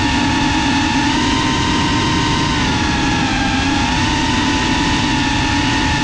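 FPV quadcopter's brushless motors and propellers whining steadily, heard through the onboard GoPro. The pitch dips a little around the middle and rises again as the throttle changes.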